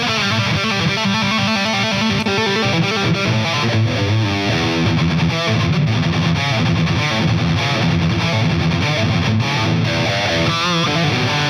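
Distorted electric guitar through the Hughes & Kettner Coreblade amp's Ultra 2 high-gain channel, playing a continuous run of lead notes with a few wavering vibrato notes near the end.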